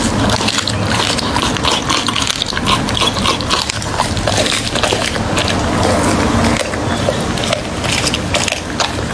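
A large dog chewing raw meat and bone close to the microphone: rapid, continuous crunching and wet chewing with many sharp cracks of bone.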